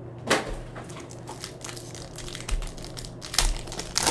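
Foil wrapper of a 2019-20 Prizm basketball retail card pack crinkling and tearing as it is ripped open by hand, in a run of sharp crackles, loudest about a third of a second in and near the end.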